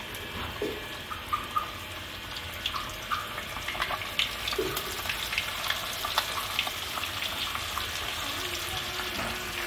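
Floured fish pieces deep-frying in hot oil in a pot: a steady sizzle with scattered crackles and pops.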